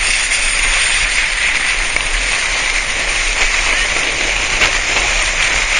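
Steady rushing hiss of a sledge towed fast over packed snow, its runners sliding on the snow.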